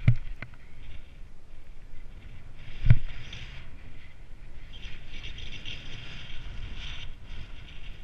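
Snow hissing and scraping under a downhill slide through snow, with wind rumble on the camera microphone. Two sharp thumps come through, one at the very start and a louder one about three seconds in.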